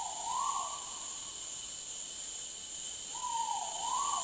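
Great argus pheasant cock calling twice, about three seconds apart; each call is one note about a second long that dips in pitch and rises again. A steady high buzz of forest insects runs underneath.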